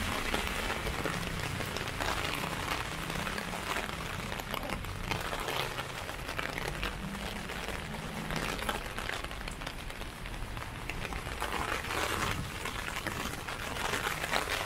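Steady rain falling on a transparent umbrella overhead, a dense hiss full of small drop ticks.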